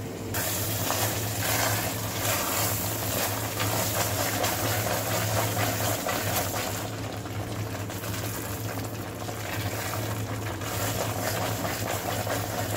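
Thick milk-cake mixture of milk, sugar and ghee bubbling and sizzling in a steel kadhai as it is stirred with a spatula, with fine crackling pops over a steady low hum. The mixture is at its final stage, thickened and sputtering.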